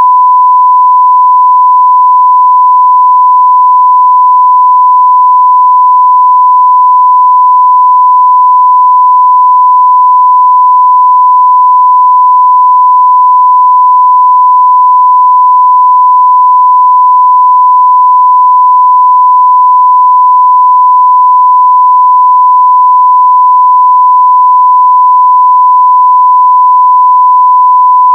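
A continuous 1 kHz sine-wave test tone at full level, one pure steady pitch with no breaks.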